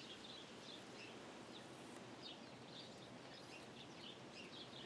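Faint small birds chirping over a low background hiss.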